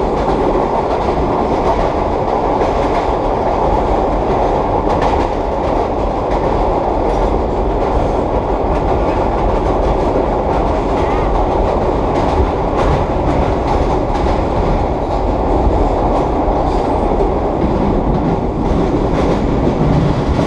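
1930s R1/9 subway cars running at speed: a steady growl from their straight-cut traction gears over the rumble of the wheels, with occasional clicks over the rail joints.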